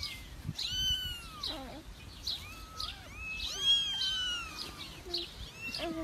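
Young kittens mewing over and over, a quick run of short, high calls that rise and fall in pitch.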